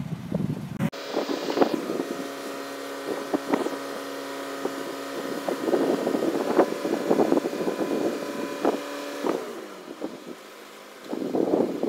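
An engine running steadily with a low hum, mixed with gusty wind buffeting the microphone; the engine sound stops near the end. The tail of the intro music cuts off about a second in.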